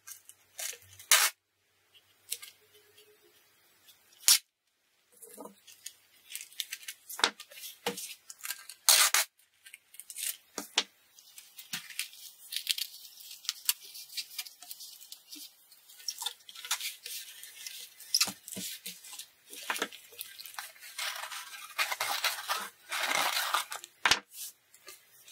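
Clear adhesive packing tape being pulled off the roll with a harsh crackling rip and pressed along cardboard edges, with scissors cutting it. The ripping runs on and off, loudest near the end.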